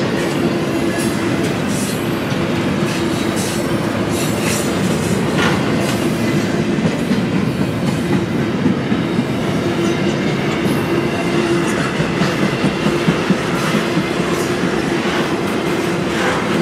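Double-stack container well cars rolling past on steel rail: a steady rumble of wheels on track with scattered clicks and clatter over the rail joints.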